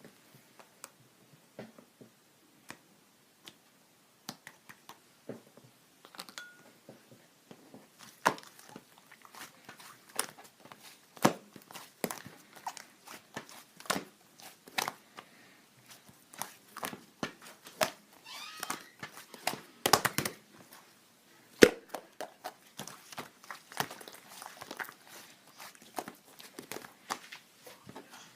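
Irregular clicks, taps and crinkling handling noises, sparse at first and then coming thickly from about eight seconds in.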